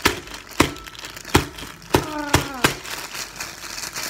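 Sealed packet of instant ramen being hit to crack the dry noodle block inside: six sharp cracking thuds roughly every half second, then crinkling of the plastic wrapper. A short falling vocal grunt comes about two seconds in.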